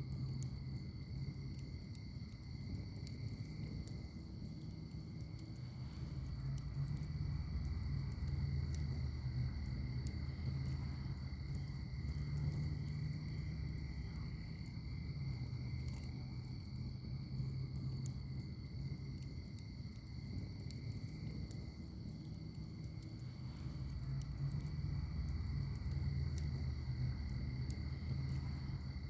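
Wood fire crackling in a firepit, with faint scattered pops over a low rumble that swells and fades. A steady high-pitched trill runs underneath throughout.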